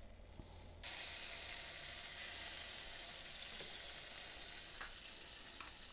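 Faint, steady sizzling of barbecue sauce being brushed onto pork ribs on hot smoker grates. It starts suddenly about a second in.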